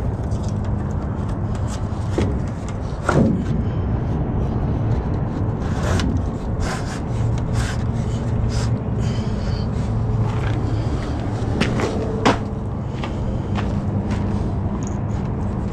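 Semi-truck diesel engine idling steadily, with scattered scuffing footsteps on gritty concrete and two sharper knocks, one about three seconds in and one about twelve seconds in.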